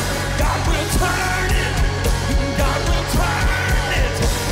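Worship band music with singing over a steady beat.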